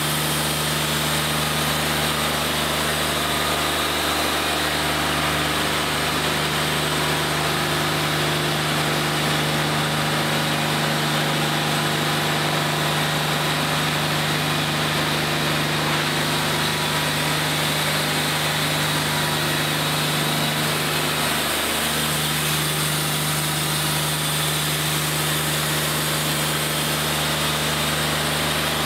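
Wood-Mizer LT40 hydraulic band sawmill running steadily at an even pitch.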